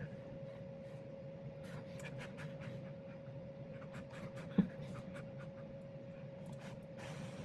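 Quiet eating sounds: faint clicks and scrapes of utensils and chewing, with one soft knock about halfway through, over a steady faint hum.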